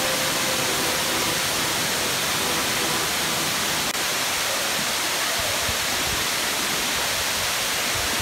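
Tinago Falls, a tall waterfall, pouring into its plunge pool: a steady rush of falling water.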